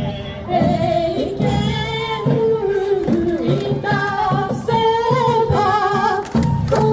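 A song with singing over a steady beat, played as dance music.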